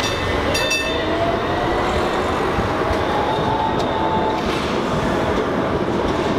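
A green articulated city tram passing close by, its wheels rumbling steadily on the street rails with a faint whine that slowly shifts in pitch.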